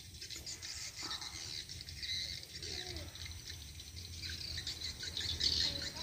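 Swiftlet calls: a dense, rapid, high twittering of chirps, the lure sound played at a swiftlet house with swiftlets responding around it. A low steady rumble lies underneath.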